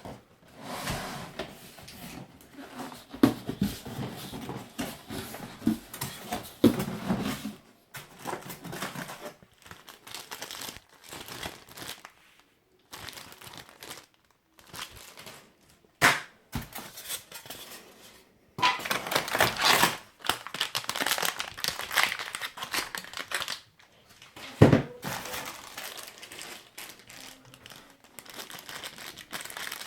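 Packaging of a laser printer being unpacked by hand: irregular crinkling and rustling with scattered clicks and knocks, and two sharper thuds, one about halfway through and one a few seconds before the end.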